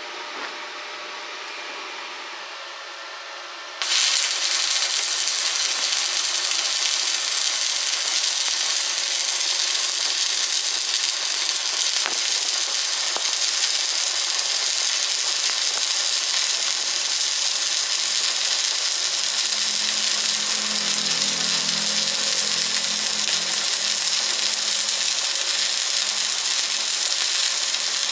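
Stick welding arc crackling and hissing steadily. It strikes suddenly about four seconds in.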